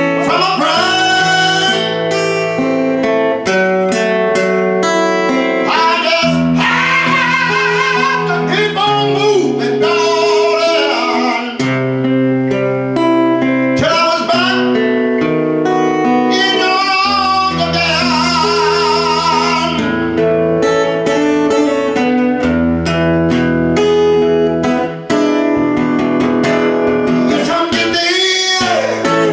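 A man singing and accompanying himself on a strummed acoustic-electric guitar. He holds several long notes with a wide vibrato.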